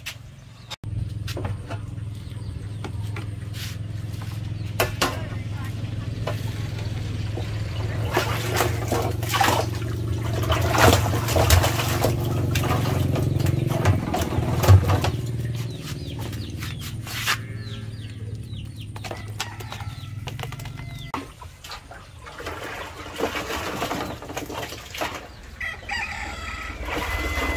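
Chickens clucking and a rooster crowing, over a steady low hum that stops about two-thirds of the way through. In the middle stretch there is a dense run of knocks and rattles as a wire cage holding a live fish is handled at a plastic water barrel.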